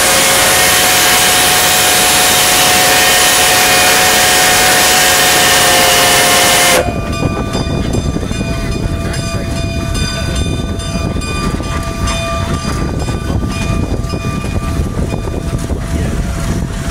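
Steam whistle of Rio Grande K-36 #484, a narrow-gauge 2-8-2 steam locomotive, blowing one long blast of several tones at once over a steam hiss, cut off sharply about seven seconds in. After that comes the rumble and rattle of the moving locomotive, heard from inside its cab.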